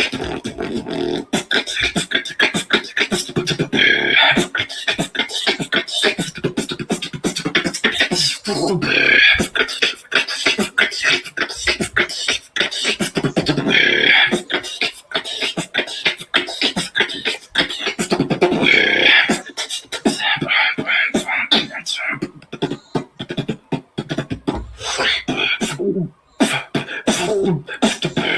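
Beatboxing: a fast, continuous run of mouth-made drum sounds in a groove, with a phrase that comes round about every five seconds and a short break near the end.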